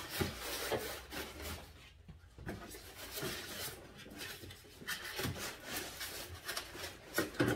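Styrofoam packing blocks rubbing and scraping against a metal table-saw fence bar as it is tugged and worked loose from the foam, with scattered small knocks and clicks.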